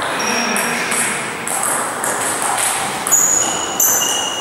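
Table tennis balls clicking off bats and table, with two sharp ball hits a little past three seconds in, each leaving a brief high ring, over steady background noise in a reverberant sports hall.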